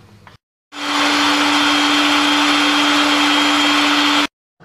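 Electric blender motor running at a steady speed with a constant hum, whipping egg and oil into mayonnaise. It starts about a second in and cuts off abruptly near the end.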